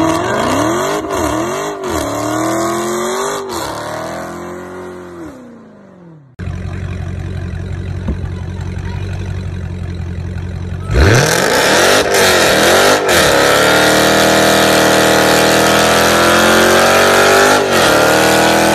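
Dodge Challenger SRT Hellcat's supercharged 6.2-litre V8 revved in several quick blips that die away. Then a Hellcat idling steadily, revving up hard about eleven seconds in and held high and steady as its rear tyres spin in a smoky burnout.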